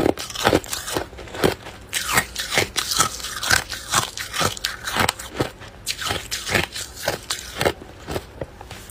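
Close-up crunching of hard ice cubes being bitten and chewed, a quick run of sharp, irregular crunches about two a second.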